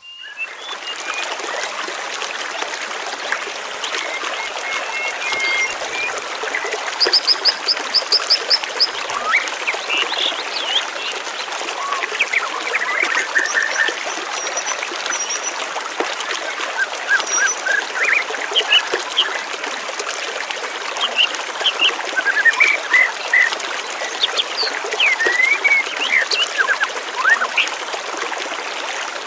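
Many birds chirping, whistling and trilling over a steady rush of flowing water, with a quick run of repeated high notes about seven seconds in.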